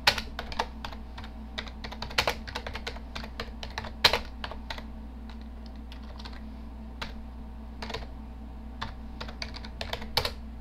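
Computer keyboard being typed on: irregular key clicks in quick runs, with a pause of a second or two in the middle and a louder keystroke near the end, over a steady low hum.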